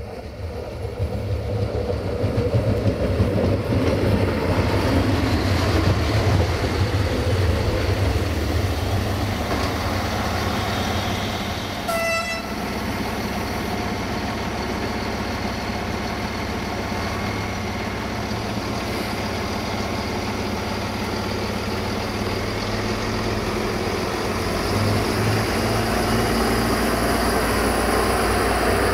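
Siemens Desiro diesel multiple unit approaching and rolling past at close range, its diesel engine running and wheels running on the rails. It grows loud over the first few seconds and then stays steady. A single short horn toot sounds about halfway through.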